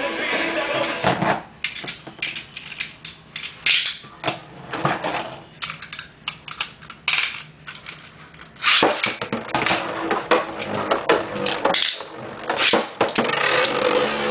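Scattered sharp plastic clicks and taps for the first eight seconds or so. About nine seconds in, the Beyblades Galaxy Pegasis W105R and L-Drago LW105LF are launched into a plastic stadium. From then on they spin and clash, giving a dense, continuous rattle of clicks.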